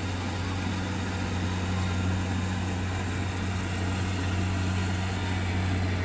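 Kubota combine harvester's diesel engine running at a steady pitch with an even, low drone as the machine cuts and threshes rice.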